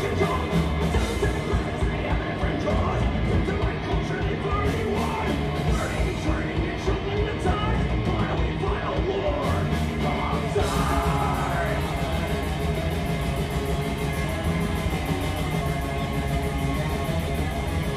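Live rock band playing loud: distorted electric guitars, bass and drum kit with shouted, metal-style vocals. About ten seconds in the drumming changes to a fast, even beat.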